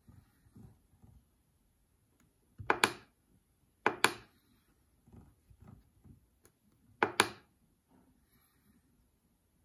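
Sharp clicks from a finger working the rotary knob on the front panel of a CNC motion controller. The clicks come three times, about a second and three seconds apart, each one a quick double click, with faint small knocks between them.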